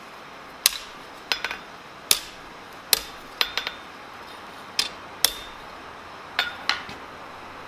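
Blacksmith's hand hammer striking a hot steel spoon handle on an anvil: about a dozen irregular blows, some in quick pairs, each with a short metallic ring.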